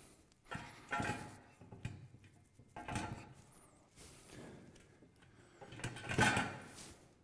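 Aluminium extrusion profile frame pieces being slid and fitted together: a run of separate metal scrapes and clunks, the loudest about six seconds in.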